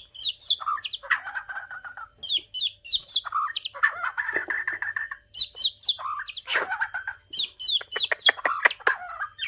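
White-rumped shama calling: repeated quick runs of three or four high, downward-slurred whistles, mixed with harsher buzzy notes and sharp clicks.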